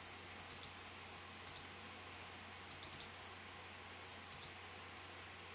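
About five faint computer mouse clicks spread out, each a quick double tick, over a low steady hum.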